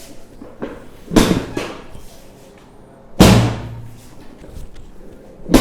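Three heavy thumps about two seconds apart, the middle one loudest with a low boom: a chiropractor's repeated spinal thrusts, the patient's body and treatment table thudding under each one.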